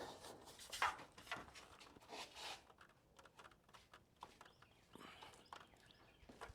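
Faint, scattered knocks and clicks of handling and movement, the loudest about a second in and again about two and a half seconds in, with quieter ticks after.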